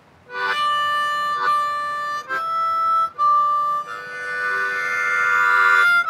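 Diatonic harmonica playing a slow blues riff: a 4-draw note twice, a 5-blow, another 4-draw, then a 4-5-6 draw chord (D minor on a C harp) held out and swelling louder toward the end.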